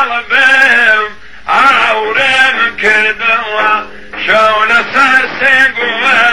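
A man sings a Kurdish folk song in long phrases with wavering, ornamented pitch, pausing briefly about a second in and again about four seconds in.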